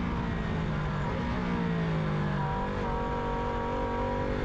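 KTM motorcycle engine running on the move while the rider downshifts, its note stepping up in pitch about a second in and again about two and a half seconds in, over wind noise on the microphone.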